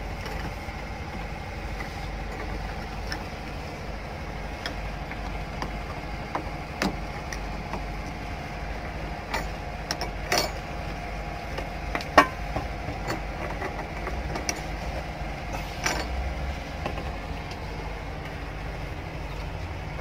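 Steady low drone of an engine running. Scattered clicks and knocks, the loudest about twelve seconds in, come from hands working among the air-conditioner hoses and wiring.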